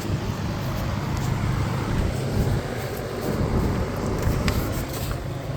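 Steady low rumble of background noise, with a couple of faint clicks near the end.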